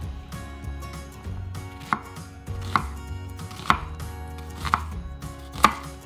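Kitchen knife chopping a red onion into wedges on a wooden board: five sharp cuts about a second apart, each ending with the blade knocking the board.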